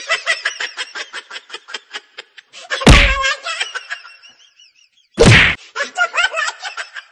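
Two loud whacks of a wooden stick striking a person, about three seconds in and again a little after five seconds, with a voice crying out in short quick bursts and wavering wails around the blows.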